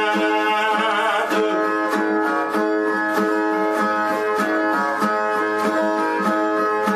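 Brazilian ten-string viola playing a repeated plucked interlude between sung repente stanzas. A held, wavering sung note trails off about a second in.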